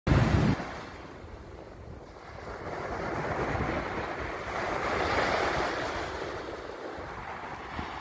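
Small Black Sea waves breaking and washing up a sandy beach: the surf rushes in, swelling to its loudest about halfway and easing off, with wind on the microphone. A brief loud rumble on the microphone at the very start.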